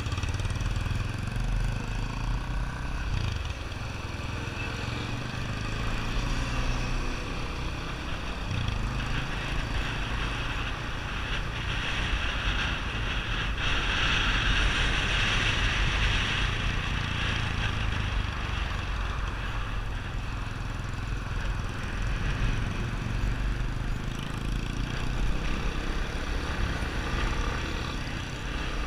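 Yamaha XTZ 250 Ténéré motorcycle's single-cylinder four-stroke engine running through a Roncar 2WAY aftermarket exhaust while the bike is ridden. A broad rushing noise swells louder around the middle.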